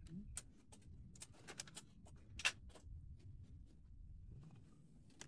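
Faint scattered clicks and taps, a dozen or so at uneven spacing, with one sharper click about two and a half seconds in, over a low room rumble.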